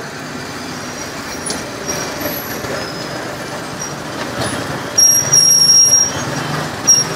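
Street traffic of motorbikes and cars, with a loud high-pitched squeal about five seconds in lasting about a second, and a brief second squeal near the end.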